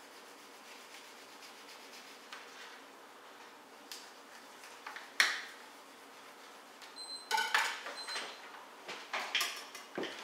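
Fillet knife cutting a whole steelhead on a metal pan, clinking and scraping against the metal. It is mostly quiet for the first few seconds, with one sharp clink about five seconds in, then a quick run of clinks and knocks near the end.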